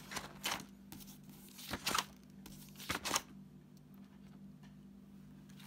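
Pages of a spiral-bound manual being flipped: three quick paper rustles about a second apart in the first three seconds, over a faint steady low hum.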